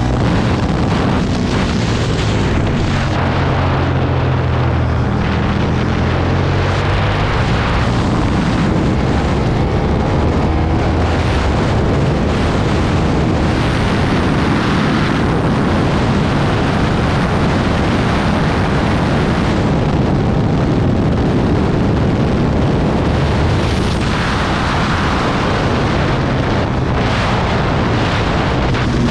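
2009 Aprilia Tuono's V-twin engine running hard at speed, its pitch rising and falling as the rider works the throttle, under heavy wind rush on the microphone.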